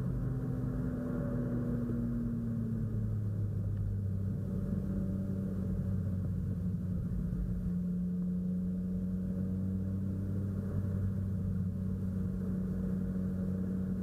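BMW E36 328i's straight-six engine heard from inside the cabin while driving. Its note falls over the first few seconds, then holds a steady low drone as the car cruises.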